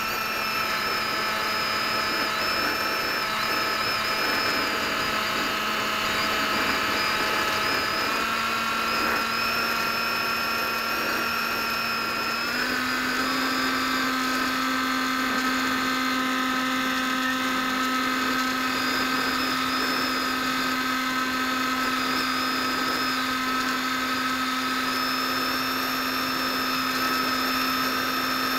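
Electric motor and propeller of an AXN Floater-Jet RC plane whining steadily in flight, heard through its onboard camera over a rush of noise. The pitch steps up a little twice, the second time about halfway through, as the throttle is opened.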